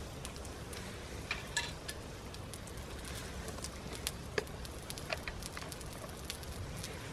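Wood fire burning in a folding fire pit and a small wood stove, the firewood crackling with scattered pops. A few sharper pops come about a second and a half in and about four seconds in.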